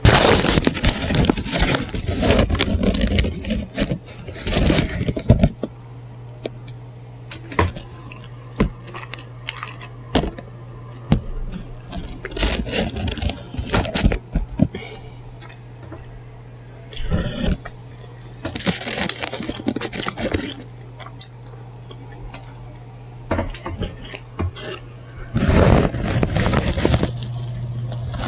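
Paper food wrapping crinkling and rustling close to the microphone in several bursts, with short clicks between them and a steady low hum underneath.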